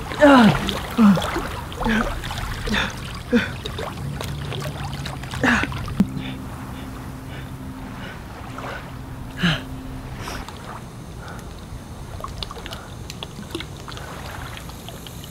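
A wounded man's short pained groans and heavy breaths as he lies in shallow pool water, with water sloshing around him. The groans come several times in the first few seconds and twice more later. A low steady hum comes in about four seconds in and stops around ten seconds in.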